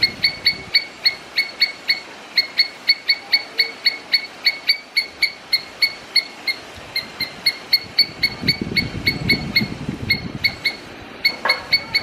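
A squirrel calling with short, sharp, rapidly repeated barks, about four or five a second in a steady run, pausing briefly near the end before resuming.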